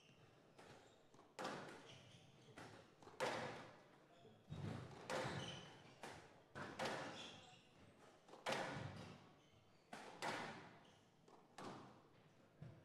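A squash ball hit back and forth during a rally: a steady series of sharp smacks from the rackets and the ball striking the walls, about one to two a second, each echoing briefly.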